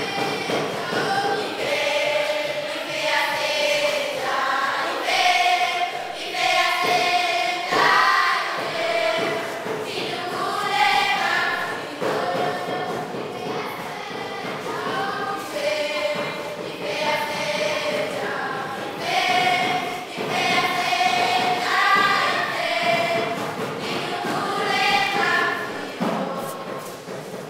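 A group of schoolgirls singing a traditional Malawian welcome song together, unaccompanied, in repeating phrases; the singing trails off near the end.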